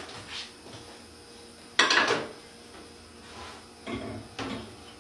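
Cookware being handled on a gas stove: one sharp clack about two seconds in and two softer knocks near the end.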